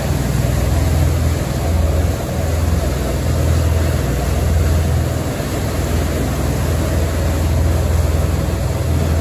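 Ferry's engines running steadily under way, a deep drone that swells and eases slightly, over the rush of water churned up in its wake.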